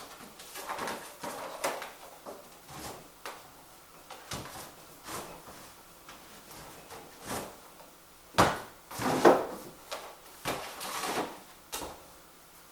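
Irregular clicks, knocks and rustling of objects being handled at close range, with a louder cluster of knocks a little past the middle.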